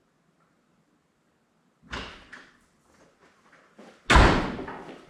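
A door slamming shut about four seconds in, a heavy thud that dies away over about a second, preceded by a sharp knock and a few lighter clicks and knocks.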